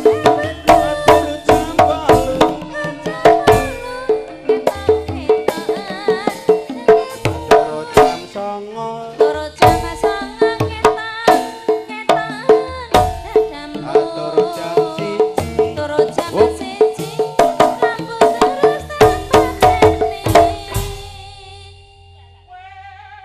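Javanese gamelan ensemble playing a lively dance piece, bronze metallophone tones over fast, sharp hand-drum strokes. About twenty seconds in the playing stops and the last notes ring out, and a wavering voice starts just before the end.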